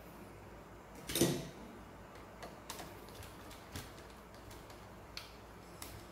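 Hands handling a plastic panel board and its circuit breakers: a short scrape about a second in, then scattered light clicks.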